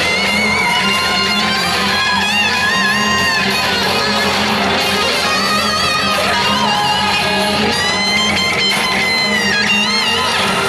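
Music of the light and water show's soundtrack: a melody of wavering held notes over a steady low pulse.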